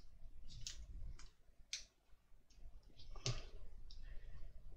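Faint, irregular clicks and ticks of a small precision screwdriver turning a tiny screw into a plastic model part, with a slightly stronger knock a little over three seconds in.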